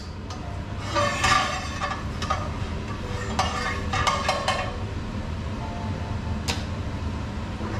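A metal utensil scrapes and clinks in a stainless steel frying pan in a few short bursts, over the steady hum of a kitchen range hood extractor fan.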